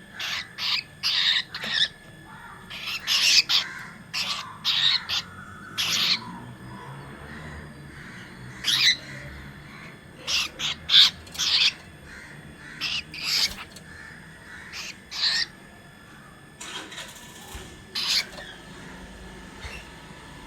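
Cockatiel giving short, harsh squawks again and again, in bunches with short gaps between them.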